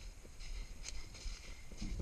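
Footsteps crunching on dry leaves and pine needles, at a walking pace of about two steps a second, over a low rumble.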